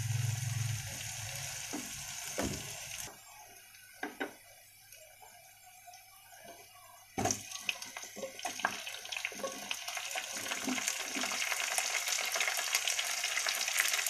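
Chopped ginger and garlic sizzling in hot mustard oil, stirred with a wooden spatula; the sizzling drops away about three seconds in. About seven seconds in there is a sharp knock as raw green mango pieces go into the pan, and the oil sizzles again, growing steadily louder as they fry.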